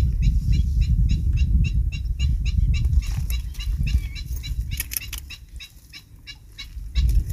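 A bird calls over and over in short, quick notes, several a second. Under it runs a low rumbling buffeting that dies away about five seconds in and returns near the end.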